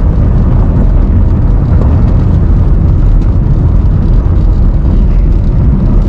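Loud, steady rumble of a car being driven on a dirt track, heard from inside the cabin: road and wind noise, heaviest in the low end.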